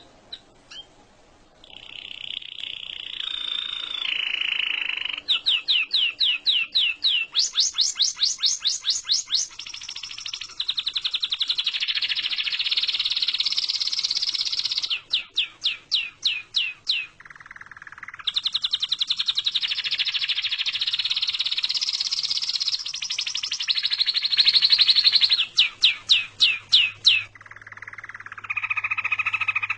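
Birds calling continuously: long buzzy, warbling phrases alternate with rapid runs of sharp, sweeping notes at about five a second.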